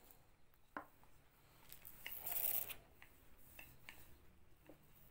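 Faint kitchen handling sounds of dough being shaped in a pastry mould: a light knock about a second in, a short rustling scrape midway, scattered soft ticks, and a sharper knock at the very end.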